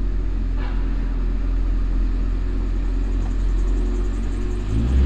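Honda CRX's dual-point fuel-injected four-cylinder running steadily while the car drives slowly, the engine note swelling near the end as it pulls harder.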